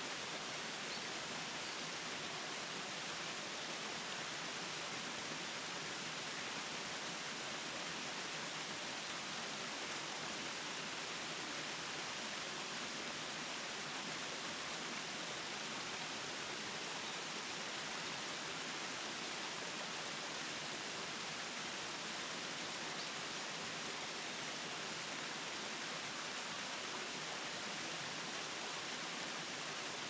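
Kiyomizu Falls, a thin waterfall down a rock face: a steady, even rush of falling water with no change throughout.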